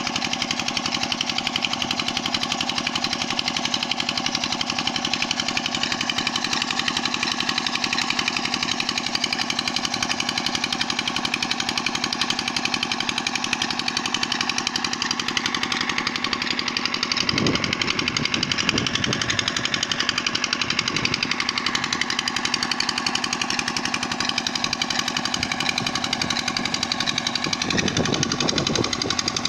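A small stationary engine driving a tube well pump, running steadily with a fast, even knocking beat, mixed with water gushing from the outlet pipe. A few low bumps come about two-thirds of the way through and near the end.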